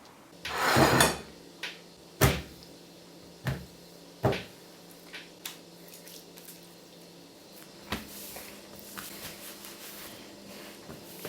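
A scraping rush of noise, then four sharp knocks spread over the next few seconds, followed by softer clicks and rustling, like wooden household objects being handled.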